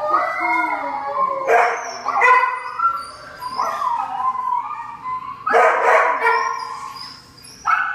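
A dog vocalizing in a run of high, wavering howls and yips, about half a dozen calls, several sliding down in pitch and some starting with a sharp bark-like onset.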